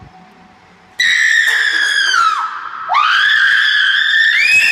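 Two long, loud, high-pitched screams: the first starts about a second in and falls in pitch before breaking off, the second rises and is held.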